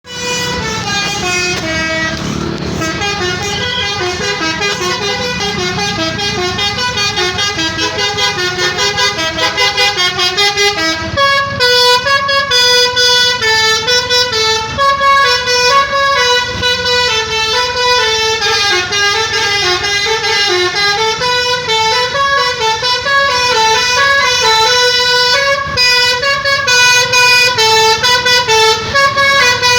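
Basuri telolet musical bus horn playing a fast melody: several horn tones step up and down in pitch several times a second without pause. About ten seconds in, the notes turn shorter and more clipped.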